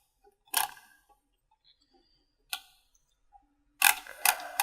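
Computer mouse clicking: four short, sharp clicks spaced unevenly, the last two close together near the end.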